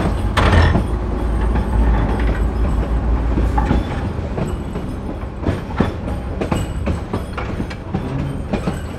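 A heavy low rumble with many irregular clanks and knocks, like a large vehicle or machine passing close by. The rumble is strongest for the first few seconds and then eases, leaving mostly the clanking.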